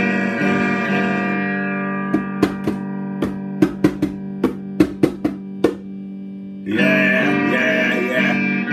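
Electric guitar chords ringing and fading over a held low note, then about a dozen sharp, irregular clicks. Loud strummed chords start again about two seconds before the end.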